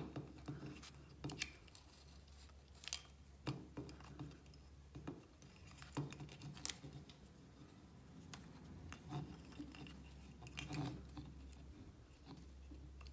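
Light, irregular clicks and rubbing of a wooden string puzzle being handled: the small wooden frame and knob knocking faintly while the looped cord is worked through it.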